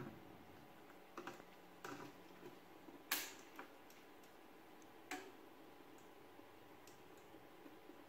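A few faint, sharp small clicks spread over several seconds, the loudest about three seconds in, as a jumper wire is handled at the input terminal strip of an Eaton smart relay control panel.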